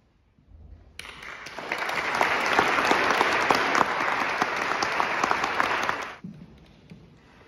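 Audience applauding. The clapping starts about a second in, swells, and cuts off suddenly near the end.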